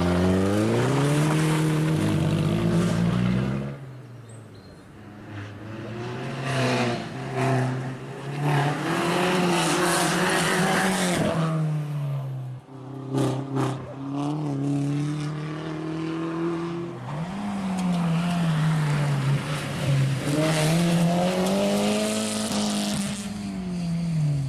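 Opel Corsa OPC rally car's turbocharged engine revving hard, its pitch climbing and dropping again and again through gear changes. It is loud at first, falls away about four seconds in, then builds back up, with a few sharp cracks about halfway through.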